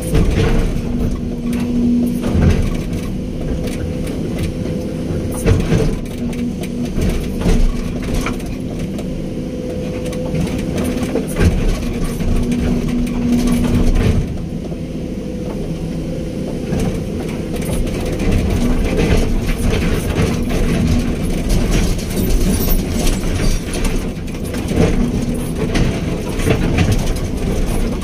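Hydraulic excavator's diesel engine running steadily, its hum swelling and easing as it works, with irregular knocks and clatter of the bucket digging and dumping soil and rock while backfilling.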